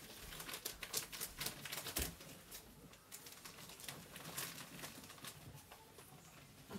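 Compressed paper pet bedding being pulled apart and fluffed by hand: a run of dry crackling rustles and clicks, busiest in the first couple of seconds with a sharp click about two seconds in, then sparser.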